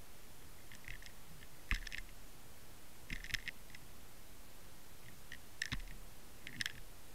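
Sharp clicks and rattles picked up underwater by a camera on a sea-fishing rig, over a steady hiss. They come in four short clusters, two with a low knock, as the rig is jostled while fish move around the bait.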